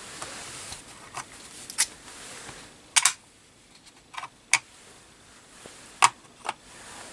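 A string of separate sharp clicks and taps, about seven over several seconds, from handling a precision screwdriver with an aluminium handle and its small steel bits.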